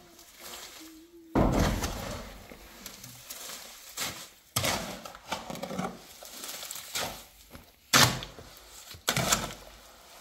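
Shovel scraping and turning wet cement mortar in a mortar tray, in repeated strokes a second or two apart.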